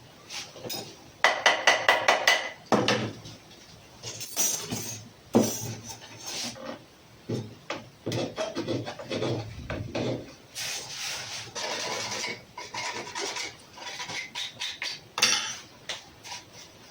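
Hand work on parts: a quick run of rasping, scraping strokes starting about a second in, then irregular scrapes, rubs and knocks.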